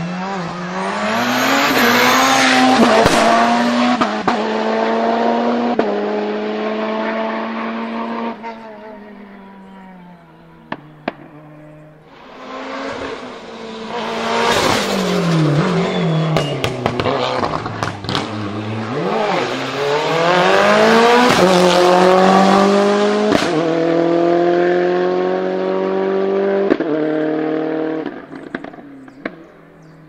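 Two hillclimb race cars accelerating hard uphill one after the other. Each engine's pitch climbs and drops back at quick upshifts before fading away. The second car's engine falls in pitch mid-run, braking and downshifting for a bend, then pulls away again through several gears, with a couple of sharp cracks between and after the runs.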